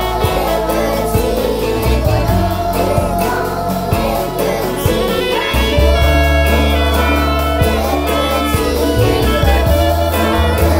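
A children's song: a group of young children singing together over instrumental accompaniment with a steady beat and bass line, the bass growing heavier about halfway through.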